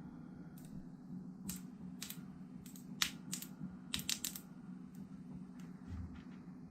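Plastic protective film being peeled off a new laptop LCD panel: irregular sharp crackles and clicks, the loudest about three seconds in and a quick cluster about four seconds in.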